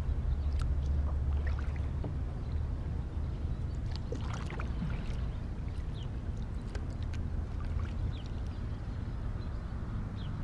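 Kayak being paddled through still floodwater: the paddle dipping and dripping, with scattered small splashes and ticks over a steady low rumble.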